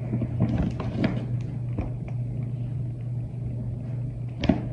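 Baby clothes and packaging being handled, with light rustles and small clicks in the first couple of seconds and one sharp click near the end, over a steady low hum.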